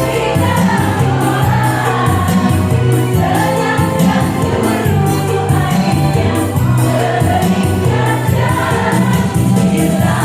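Women's choir singing over a backing accompaniment with held bass notes and a steady beat.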